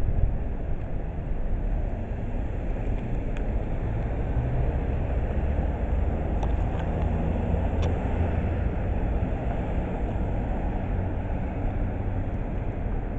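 Steady low rumble of outdoor street ambience, with a few faint ticks about a third and about halfway through.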